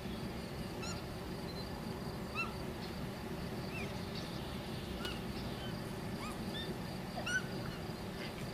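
Short, high calls that rise and fall, about six of them spread a second or so apart, over a steady outdoor hiss.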